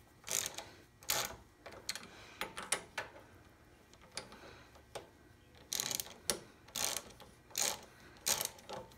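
Hand socket ratchet clicking in short bursts of a few clicks each as it is worked back and forth to snug down nuts on a small engine's carburetor mount.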